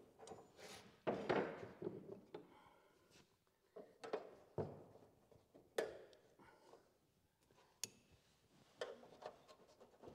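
Replacement front chassis rail section of sheet steel being handled and worked into place by hand: scattered knocks, taps and scrapes of metal on metal, the loudest about a second in and sharp single knocks later on.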